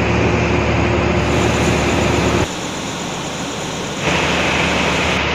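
Steady running noise of a passenger train heard from inside the carriage: a loud even rush with a low hum under it. It drops abruptly to a quieter level about two and a half seconds in and comes back up about a second and a half later.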